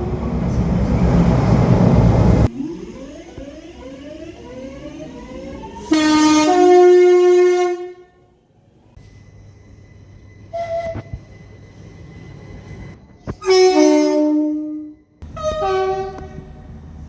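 Train horns in a series of separate recordings. Loud train running noise comes first. Then a two-tone horn blast steps up from a lower to a higher note, a short single toot follows, then another two-tone blast steps from high to low, and another short toot comes near the end.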